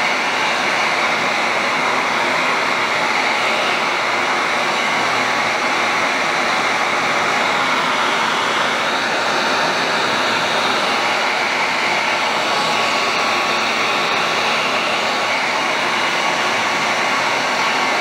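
Electric heat gun running steadily, its fan blowing a continuous rush of hot air.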